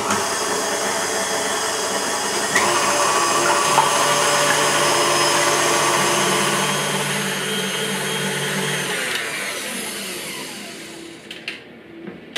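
Electric mixer whisking egg whites towards stiff peaks: a steady motor whir with a shift in tone partway through. It dies away and stops about a second before the end.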